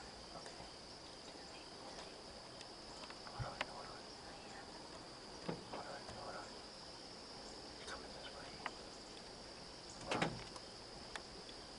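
Steady high-pitched chorus of insects at dusk, with a few soft knocks and rustles, the loudest about ten seconds in.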